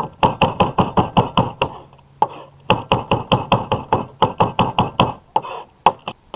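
Chef's knife chopping fresh rosemary on a plastic cutting board, in quick strokes about six a second. The strokes come in two long runs with a short pause about two seconds in, then a few scattered chops near the end.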